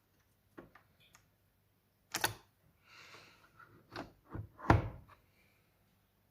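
A Nespresso De'Longhi Inissia coffee machine being handled: a series of separate knocks and clacks, with a short rustle between them and the loudest knock just under five seconds in.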